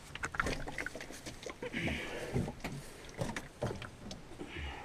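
A full, heavy plastic water container being shoved into a wire-grid cube shelf: an irregular string of knocks, clunks and scrapes of plastic against metal wire, with two longer scraping stretches about two seconds in and near the end.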